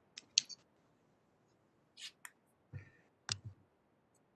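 Faint, scattered clicks and light taps from a spiral sketchbook being handled and shifted on a tabletop, a couple of them near the end with a soft thump.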